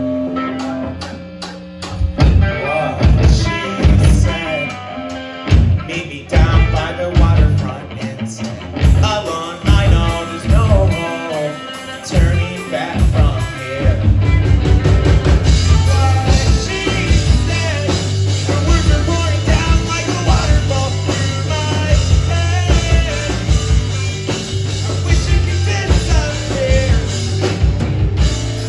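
Rock band playing live, with drums, electric guitar and bass under a singing voice. The first half has separate, accented drum and guitar hits; about halfway through the full band comes in, fuller and steadier.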